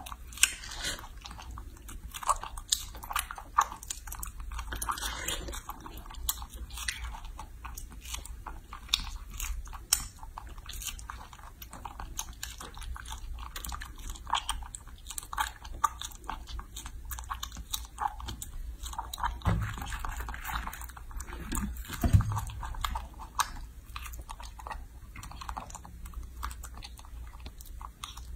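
A baby macaque biting into and chewing ripe strawberries close up: a steady run of short, sharp bite and chewing sounds. A couple of low thumps come about two-thirds of the way through.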